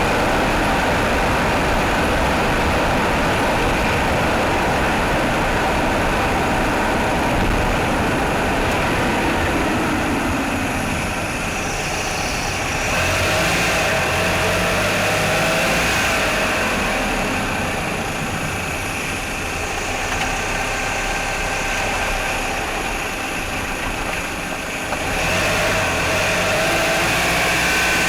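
Mitsubishi Outlander's 4G63 inline-four petrol engine idling. The tone shifts twice, about eleven seconds in and again near the end.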